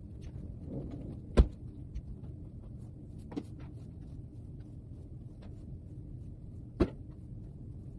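A few sharp knocks and bumps from furniture and bedding being handled during bed-making. The loudest is about a second and a half in and another comes near the end, over a steady low hum.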